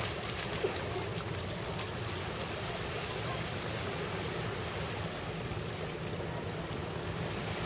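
Steady wash of small waves lapping on a sandy beach, an even noise with no clear rhythm, a few faint clicks in the first couple of seconds.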